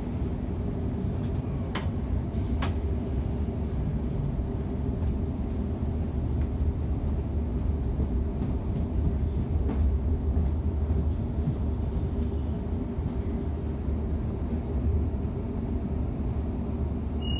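Steady rumble of a loaded container freight train rolling past on the adjacent track, heard from inside a Waratah suburban electric train, with wheel-on-rail noise and a few sharp clicks about two, three and ten seconds in.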